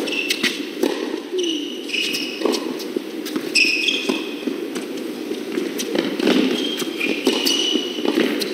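Tennis rally on an indoor hard court: the ball is struck by rackets and bounces again and again, with tennis shoes squeaking briefly on the court as the players move.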